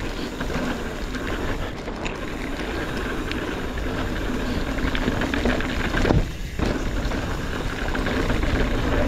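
Hardtail mountain bike rolling fast down dirt singletrack: steady tyre noise with a strong low rumble, and frequent small rattles and clicks from the bike over the bumps. There is a brief dip in the noise about six seconds in.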